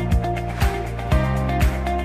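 Electronic background music with a steady kick-drum beat, about two beats a second, over held bass notes.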